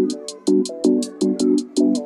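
Electronic background music with a quick, steady beat and short repeated chords.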